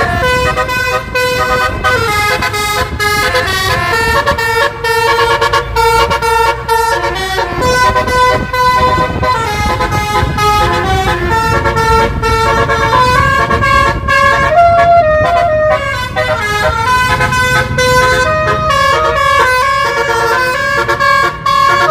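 Tour bus's roof-mounted basuri musical air horns playing a tune, one stepped note after another, with a low rumble underneath.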